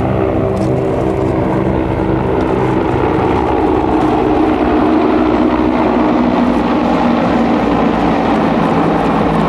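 Four CH-146 Griffon helicopters passing overhead in formation: a rapid rotor beat under the steady whine of their twin turboshaft engines, the pitch sinking slightly as they go by.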